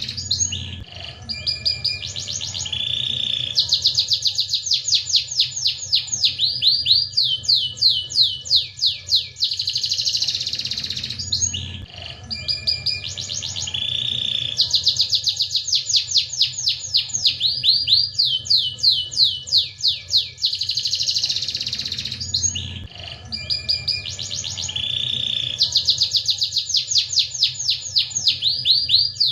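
Domestic canary singing continuously: long phrases of rapid trills and rolls, high-pitched. The same sequence of phrases comes round about every 11 seconds.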